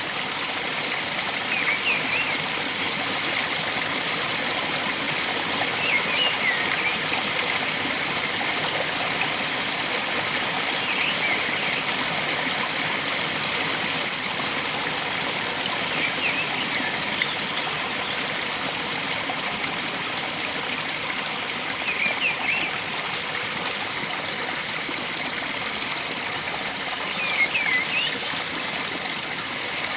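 Steady rush of flowing water, like a forest stream, with a bird giving a short chirping call about every five seconds.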